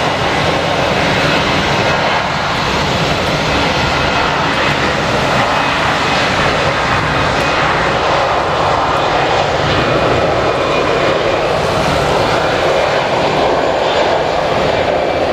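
Jet airliner engines running, a loud, steady rushing noise.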